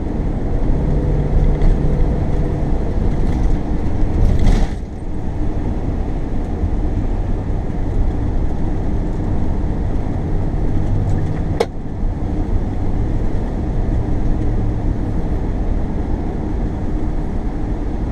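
Car driving on a wet road: steady low rumble of tyres and engine. About four and a half seconds in, a louder rush stops abruptly, and a single sharp click comes near twelve seconds.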